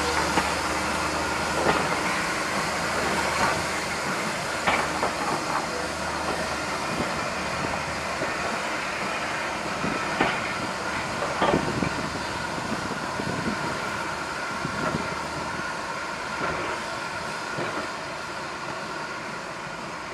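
Steam train's passenger coaches rolling along the rails, with scattered wheel clicks and knocks over the rail joints. The sound slowly fades as the train pulls away.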